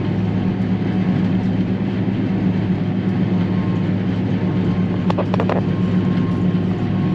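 Self-propelled forage harvester running steadily while chopping corn, a low, even drone. A quick run of a few clicks comes about five seconds in.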